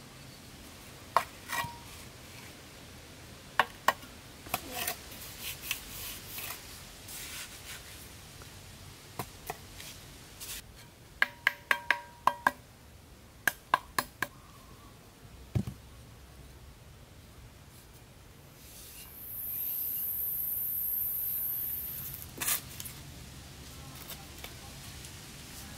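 Sharp knocks of hand tools striking wood, some single and some in quick runs of four or five strikes, with a duller low thump in between. A steady high-pitched hiss lasts about three seconds near the end.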